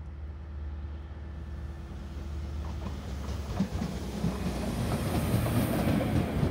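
Voith Gravita 10 BB diesel-hydraulic locomotive (DB Cargo class 261) running light, its V8 diesel engine humming steadily and growing louder as it approaches. From about halfway in, its wheels clatter over rail joints and points as it passes close, loudest near the end.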